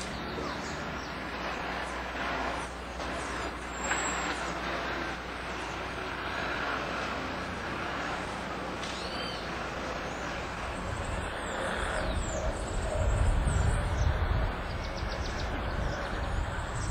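Outdoor urban ambience: a steady background hiss with a few short bird chirps, and a low rumble that builds from about two-thirds of the way in.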